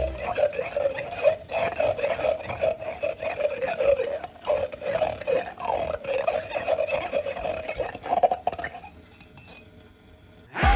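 Tusken Raider cry sound effect: one long warbling call whose pitch wavers up and down for about nine seconds, then dies away near the end.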